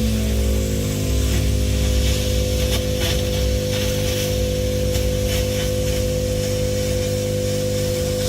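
Plasma cutter cutting through car body sheet metal freehand: a steady hiss from the arc and air jet with light crackling, over a steady hum from the machine.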